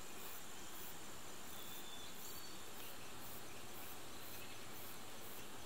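Insects chirping in a steady, even pulse of about two chirps a second, over a quiet outdoor background hiss.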